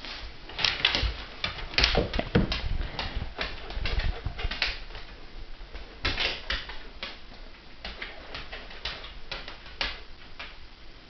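Dogs' claws clicking on wooden floorboards as a Bernese mountain dog puppy scampers about in play, a quick irregular run of clicks and light knocks.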